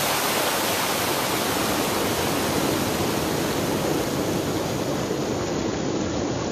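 Waterfall in a rocky mountain gorge: a steady, even rush of falling water. The highest part of the hiss drops away a little before the end.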